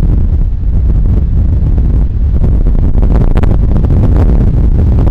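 Strong storm wind buffeting the microphone in a loud, steady low rumble, over heavy surf breaking on the beach, with a harsher gust about three seconds in.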